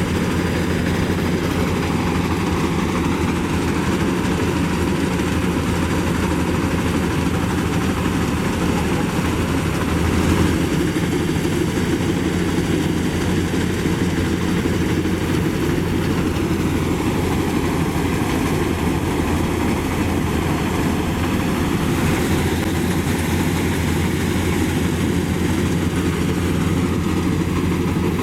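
Engine of a Maxxi Bimo 102 rice combine harvester running steadily with a low, even drone, briefly louder about ten seconds in.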